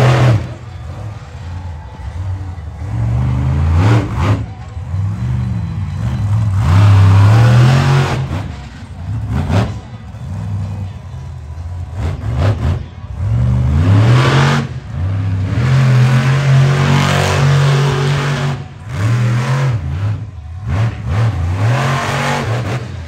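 Monster truck engines revving hard, their pitch climbing and dropping over and over as the trucks launch and power over crushed cars. Several sudden loud crashes break in as the trucks land on the car bodies.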